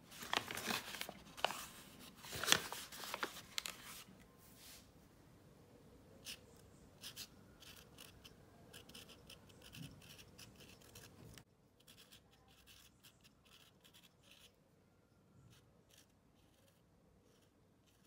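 Kraft-paper package being handled, the paper crackling and rustling, for the first four seconds or so. Then a Sharpie marker writes on the back of a small stretched canvas in faint, short scratchy strokes.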